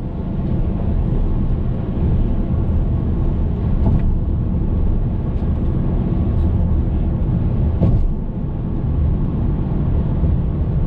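Hyundai Veloster Turbo driving along, a steady low rumble of engine and road noise.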